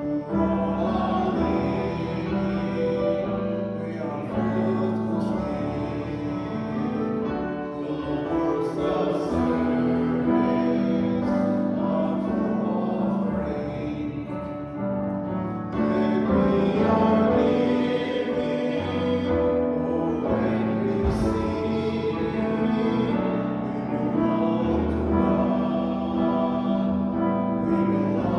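Church congregation singing a hymn together, with many voices holding sustained notes.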